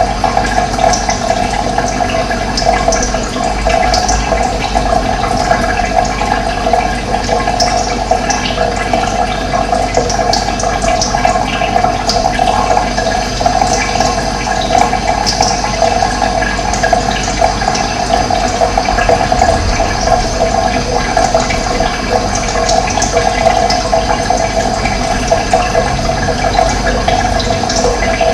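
Steady rush of running water, with brief high chirps of birds scattered over it.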